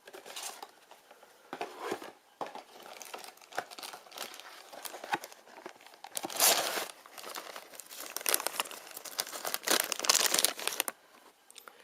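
Crinkling and rustling of a blind-box toy's packaging as the figure is unwrapped by hand, in uneven bursts that grow louder in the second half and stop shortly before the end.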